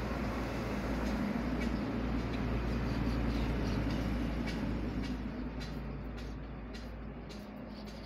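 Steady low background rumble with an electrical mains hum, swelling over the first few seconds and easing off after about five seconds; a few faint ticks near the end.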